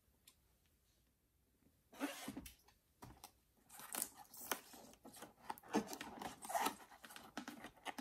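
Gloved hands handling a cardboard box and sliding its white outer sleeve off. After a near-silent start, irregular scraping and rubbing of cardboard begins about two seconds in and grows busier toward the end.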